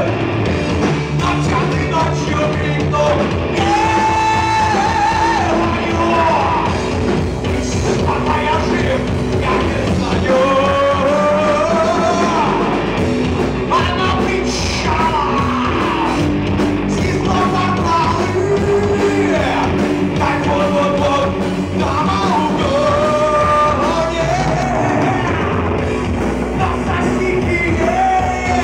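Live rock band playing: a male lead vocal sings over electric guitar, bass guitar and drums.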